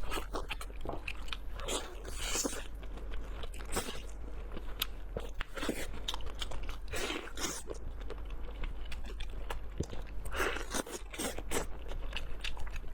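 Close-miked eating sounds: crunching bites and chewing, with three louder bursts of crunching a few seconds apart and small clicks and smacks in between.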